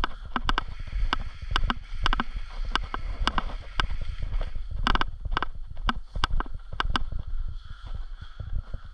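Irregular sharp clicks and knocks, several a second, some in quick pairs, over a steady low rumble.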